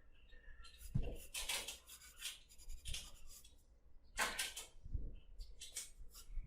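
Quick scratchy shading strokes of a drawing tool on paper, in several short runs, with dull low bumps about a second in and again near five seconds.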